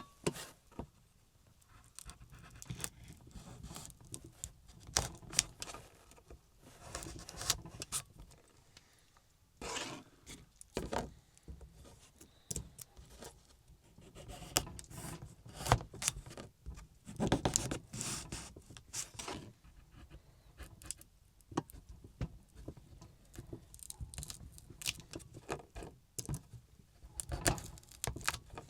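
Irregular rustling, scraping and light clicks of objects being handled, coming in short uneven bursts of a second or two.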